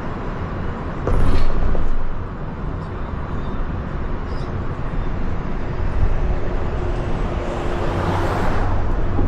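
Road noise of a car on the move: steady rumble and tyre hiss. A louder rush comes about a second in, and another swells and fades near the end.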